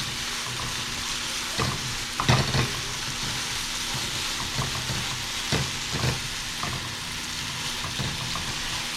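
Steak and sliced onions sizzling steadily in a frying pan as the onions give up their water. A utensil stirring them knocks against the pan a few times.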